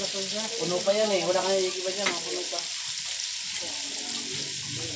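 Battered chicken pieces deep-frying in a large pan of hot oil: a steady, busy sizzle of the bubbling oil.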